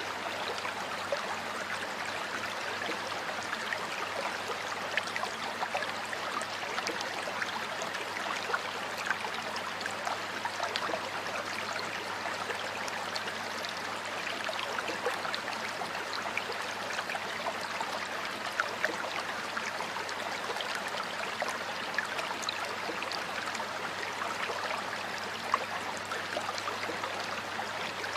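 Stream water flowing steadily over rocks, an even rushing with many small gurgles and splashes.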